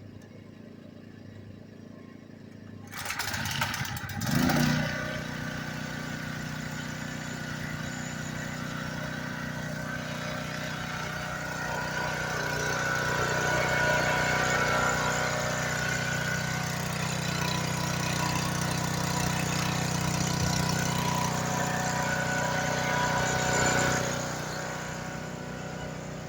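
Ryobi 1800-watt electric pressure washer switched on with no water connected: a short start-up surge about three seconds in, then its motor and pump running steadily.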